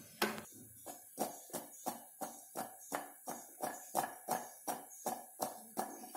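Raw potato sticks being shaken and tossed in a glass bowl by hand, landing with a soft, even rhythmic thud about three times a second.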